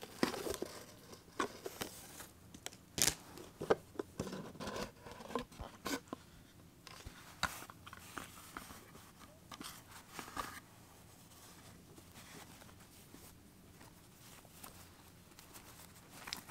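Hands unboxing a cardboard gift box: a ribbon pulled loose, the lid lifted off, and a cloth dust bag handled and opened. It is heard as rustling with scattered sharp clicks and taps, busiest in the first half and softer later.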